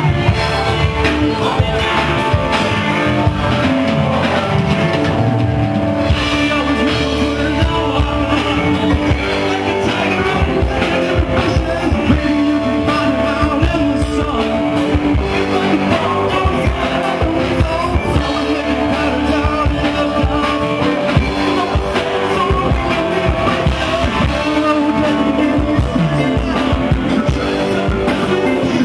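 Live jam band playing loudly: electric guitar over drums, with singing, recorded from within the audience.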